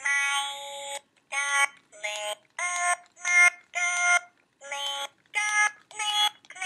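Sing-A-Ma-Jig plush toy singing: a string of about ten short electronic sung syllables, each held on a steady pitch and stepping up and down in a little tune, with brief silent gaps between them.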